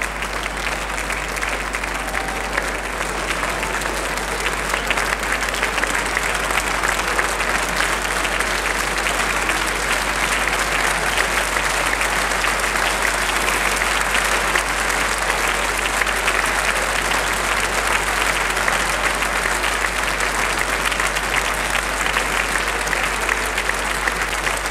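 Concert audience applauding steadily at the end of a live orchestral performance, growing a little fuller after the first few seconds.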